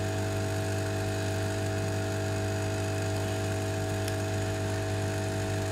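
Steady electrical hum: a low drone with several fixed higher tones, unchanging throughout, and one faint click about four seconds in.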